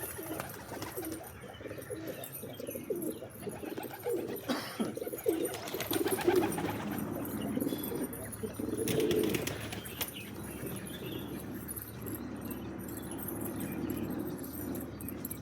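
Pigeons cooing: repeated low, warbling coos through the whole stretch, with a couple of brief bursts of wing flapping about four and a half and nine seconds in.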